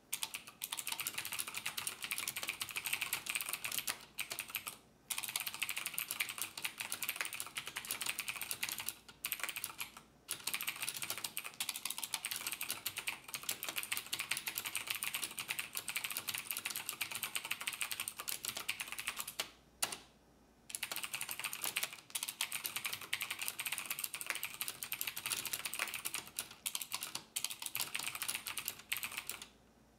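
Typing on a computer keyboard in long fast runs of keystrokes, broken by short pauses about four, ten, twenty and twenty-nine seconds in.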